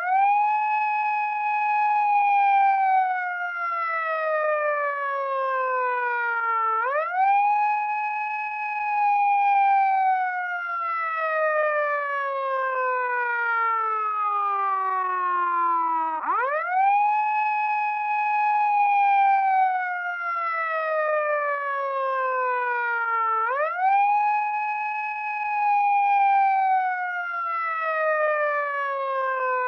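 Wailing siren. Its pitch rises quickly, holds briefly, then slides slowly down over several seconds before sweeping up again, four times in all.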